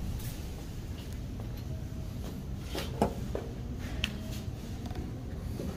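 Quiet indoor room tone with a few scattered light knocks and clicks, the sharpest about three seconds in and another about a second later.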